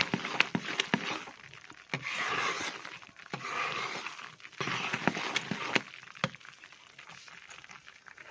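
Besan roasting in ghee being stirred and scraped around a kadhai in repeated scraping strokes, with sharp knocks of the spoon against the pan. The stirring eases off over the last couple of seconds.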